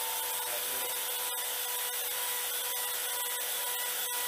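A machine tool running: a steady rasping, grinding hiss with a faint steady whine under it.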